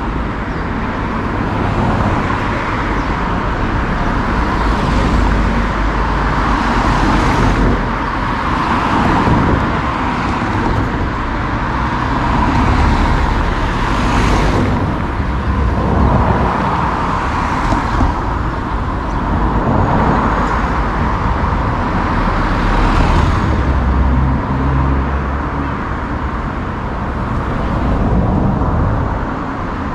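Road traffic: a steady rumble of cars, with vehicles passing close every few seconds.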